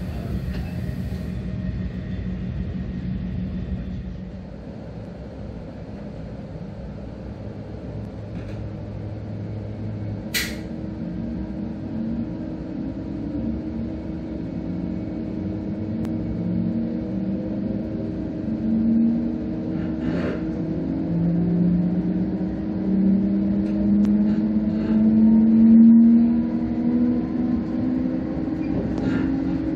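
Electric traction motors of an NS Koploper (ICM) train, heard from inside the door vestibule as the train pulls away and accelerates: a hum that rises slowly in pitch and grows louder over a steady tone. There is a sharp click about ten seconds in.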